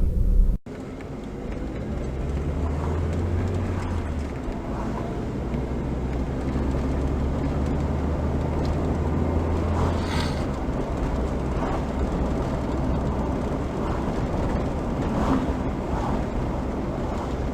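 Steady road and engine noise from inside a moving car, with a low drone, heard through a dashcam's microphone.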